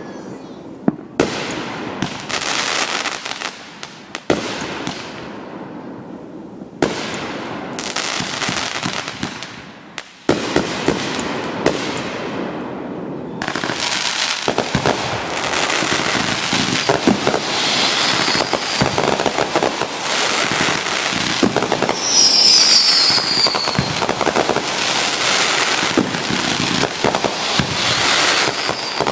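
Fireworks going off. First come several sharp bangs, each trailing a long crackling fizz. About halfway in, a dense, continuous barrage of crackles and pops takes over, with a short falling whistle about three quarters of the way through.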